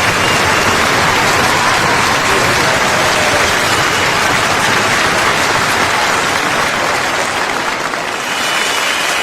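A crowd applauding, a dense steady clatter of clapping, with faint steady whistle tones above it: one briefly about four seconds in and another starting near the end.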